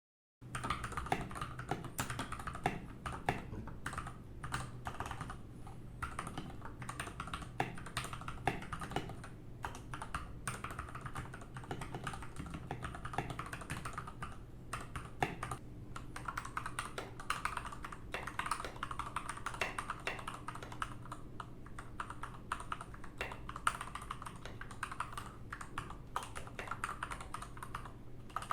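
Fast, continuous typing on an Akko World Tour Tokyo R2 mechanical keyboard: a dense, irregular run of keystrokes with no pauses, over a faint steady low hum.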